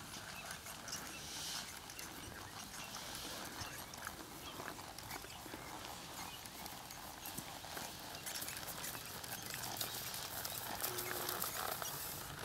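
Hoofbeats of a ridden horse walking and jogging on dry dirt and grass: soft, uneven hoof falls over a steady background hiss.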